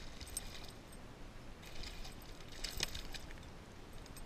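A hooked fish splashing and thrashing at the surface beside a kayak as it is pulled in on the line, in a few short splashy bursts: one right at the start, and two more a bit under two seconds and about three seconds in.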